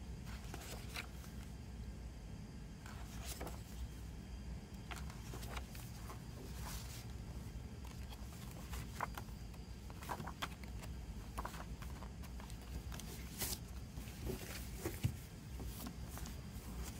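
Glossy paper pages of a photo booklet being turned and handled by hand: scattered rustles, page flicks and light taps of paper on a table, over a steady low hum.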